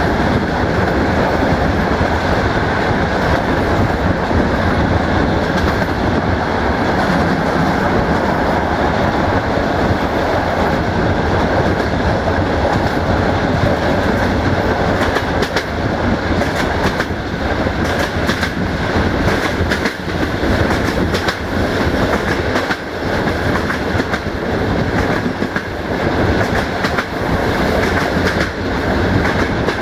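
Passenger train coaches running at speed, heard from an open coach window: a steady rumble of wheels on the rails with a clickety-clack of wheels over rail joints, the clicks growing more distinct about halfway through.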